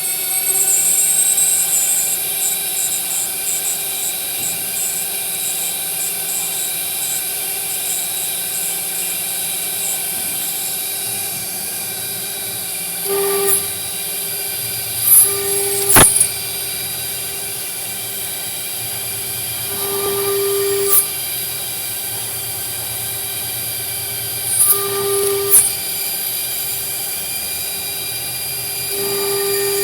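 CNC router spindle running steadily as it mills 10 mm aluminium, a whine with many tones over a constant hiss. Several times a louder tone swells for about half a second to a second, and about halfway through there is one sharp click.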